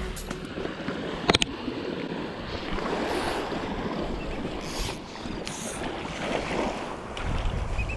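Small surf washing onto the beach, with wind buffeting the microphone. A sharp click comes about a second in, and a few short high hisses follow near the middle.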